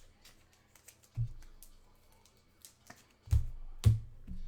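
Trading cards being handled at a table: light clicks and taps, with a dull thump about a second in and two louder thumps near the end.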